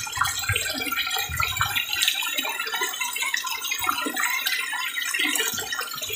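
A crowd of tilapia splashing and gulping at the surface of a pond: a steady crackle of many small irregular splashes.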